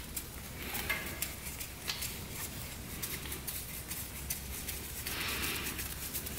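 Irregular light metallic clicks and rustling of hands and tools working at the engine, with a brief scrape about five seconds in, while the compression tester is moved to the other cylinder.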